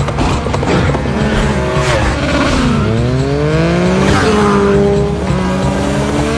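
Motorcycle engines running and revving close by, their pitch falling and then climbing again about halfway through, over a dense low rumble of traffic.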